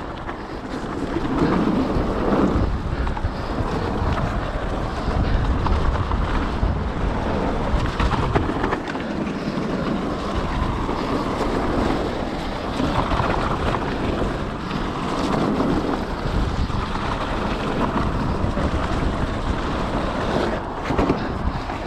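Wind rushing over the microphone of a mountain bike rider's camera at speed, mixed with the steady rumble of the bike on the trail and scattered knocks.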